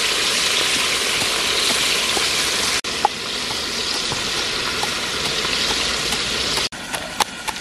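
A steady sizzling hiss from a pot simmering over a wood fire. After a cut, a pestle pounds chillies in a mortar, with a sharp knock about three seconds in and a run of clicks near the end.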